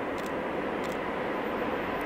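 Electric locomotive hauling a container freight train as it approaches: a steady rumbling noise with a faint steady tone, growing slowly louder, with a few faint light clicks.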